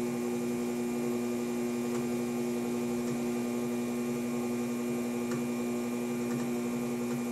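Electric potter's wheel running with a steady electrical hum, while a clay vase is shaped on it by hand and rib.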